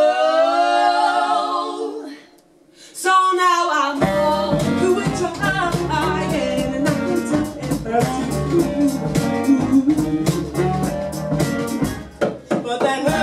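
Live band music: unaccompanied group vocal harmony holds a chord, breaks off briefly, and at about four seconds the band comes in under the singing, with electric guitar, upright bass and a fast, steady beat of sharp taps.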